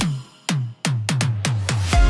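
Electronic dance background music: the beat drops out briefly, then comes a quickening run of drum hits, each falling in pitch, leading back into the full beat.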